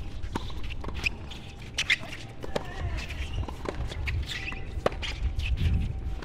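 Tennis rally on an outdoor hard court: the ball cracks off rackets at irregular intervals, with sneakers squeaking and scuffing on the court surface between shots.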